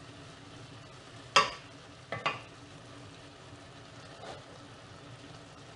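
Food sizzling steadily in a pan, with a utensil knocking against the pan: one sharp knock about a second and a half in, two more quickly after two seconds, and a softer one near four seconds.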